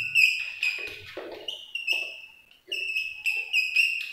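Chalk squeaking and scratching on a blackboard as words are written: a high, steady squeak broken into many short strokes, each with a brief scratch, with a short pause about two and a half seconds in.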